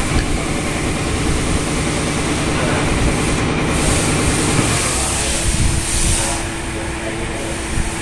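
Steady engine noise, with a steady low hum coming in about halfway through.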